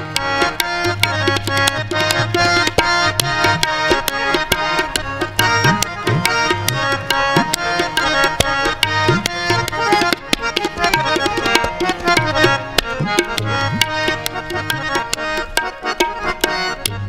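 Instrumental interlude of Sikh kirtan: two Yamuna harmoniums play a sustained reed melody over fast, dense tabla strokes. The deep bass drum of the tabla slides upward in pitch again and again.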